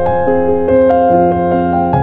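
Background piano music, a gentle melody of held notes changing every few tenths of a second.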